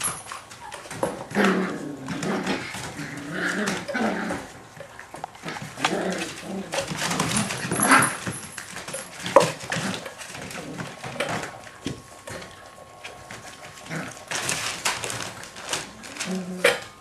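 Kooikerhondje puppies play-fighting, with short, irregular yaps, whimpers and growls. Newspaper crinkles and rustles under their paws.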